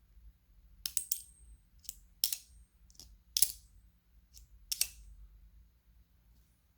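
Pocket knives and metal tools being handled: about eight sharp metallic clicks and clinks, a few with a brief high ring, in an uneven sequence.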